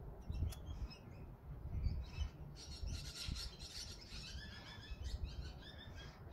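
Crochet hook and yarn rubbing and rasping softly as single-crochet stitches are worked close to the microphone, with short high squeaks scattered through the middle.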